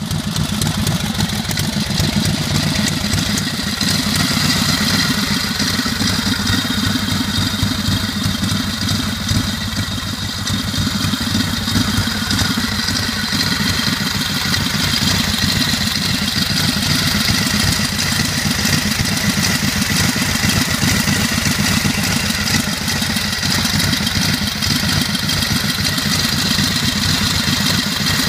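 1915 Harley-Davidson board-track racer V-twin engine running steadily on a test bench.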